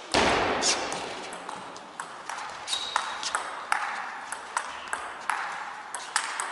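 Table tennis rally: the ball clicking sharply off the players' rubber bats and bouncing on the table, the clicks coming quickly, about two or three a second.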